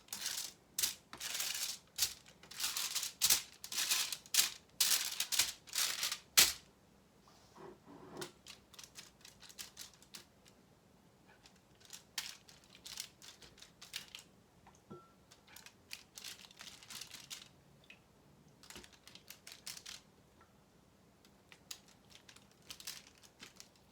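Hands turning raw chicken thighs over on a foil-lined pan: a quick series of short rustling, crinkling scrapes for about six seconds, then only scattered faint taps and clicks.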